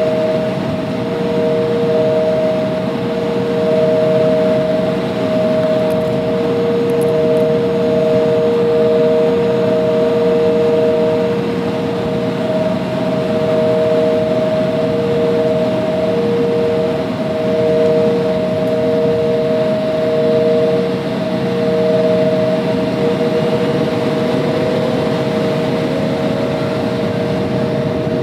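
Jet airliner's engines heard inside the passenger cabin while the aircraft is on the ground: a steady whine of two held tones over a rushing noise, one tone rising slightly near the end.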